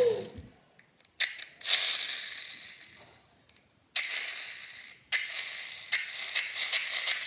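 Small plastic toy mechanism clicking and whirring as it is worked by hand. There are several separate bursts, each starting with a click and fading over about a second, then quicker clicking from about five seconds in.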